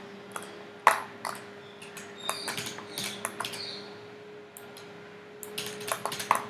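Computer mouse clicking at irregular intervals, with a faint steady hum underneath.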